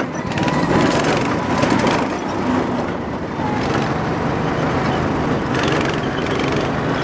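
Go-kart engines running steadily as the karts drive around the track.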